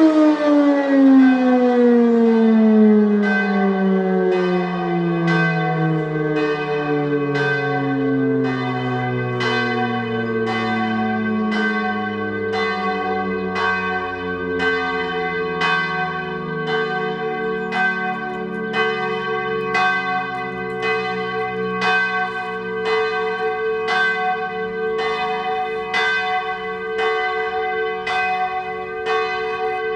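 Siemens FM SI 40 air-raid siren winding down at the end of its alarm: its wail falls slowly in pitch over about ten seconds and fades as the rotor runs down. From about three seconds in, a church bell rings in steady, evenly spaced strokes and carries on to the end.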